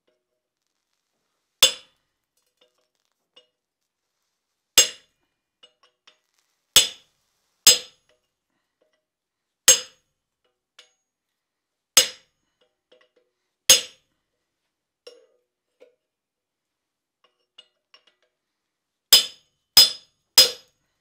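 Hand hammer striking a slitting chisel that is being driven into a red-hot iron bar set in a swage on the anvil: ten sharp metallic blows, each ringing briefly, spaced unevenly with a long pause in the middle and three quick blows near the end.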